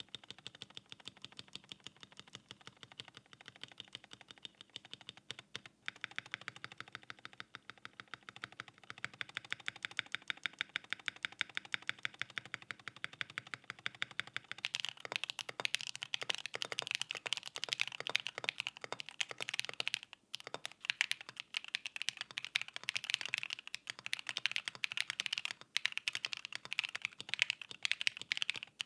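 Mode Eighty custom mechanical keyboard with linear switches, heard on polycarbonate and POM plates. First comes a fast, even run of spacebar presses. About halfway through it changes to louder, denser two-handed typing.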